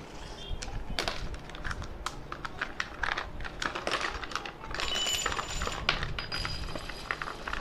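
Clear plastic blister packaging being worked open, crackling and clicking, as small steel circular saw blades inside it clink against each other and onto a wooden table. In the second half the thin steel blades ring briefly, twice.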